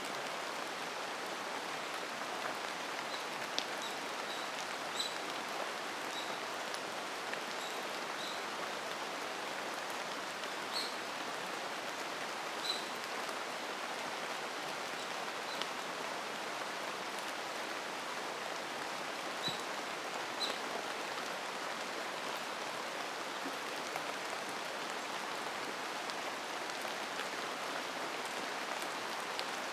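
Steady rain falling in a forest, an even hiss of drops on leaves, with scattered louder drops ticking every few seconds.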